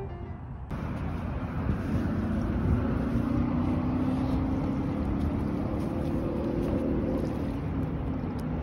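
Wind rumbling on the microphone over small lake waves lapping onto a sandy beach. A faint steady drone of a distant engine swells slightly and fades in the middle. Piano music cuts off less than a second in.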